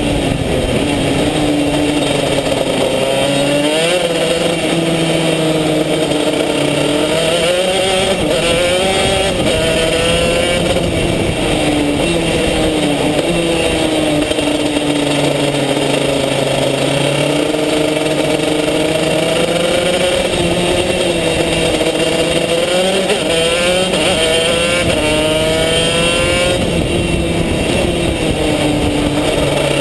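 Racing kart engine heard from on board at speed, its pitch climbing as it accelerates and falling back as it slows for corners, over and over.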